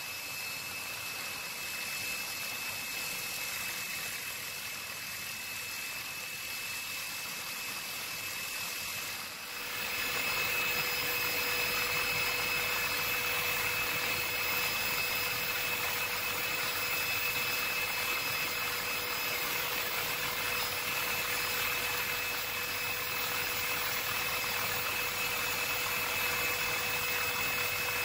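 Helicopter cabin noise: a steady engine drone with rushing air. About nine seconds in it steps up louder, with a steady high whine over a lower hum.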